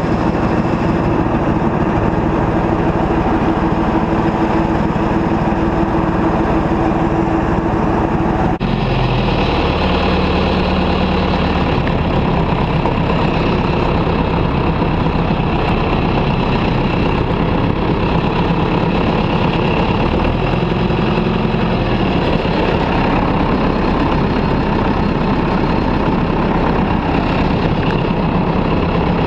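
John Deere 2140 tractor's diesel engine running steadily. Its note changes abruptly about a third of the way in.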